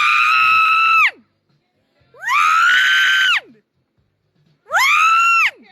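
A high-pitched scream, repeated three times with short silences between. Each is about a second long, sweeps up, holds, then drops off, and all three have the same shape, like a looped sound effect.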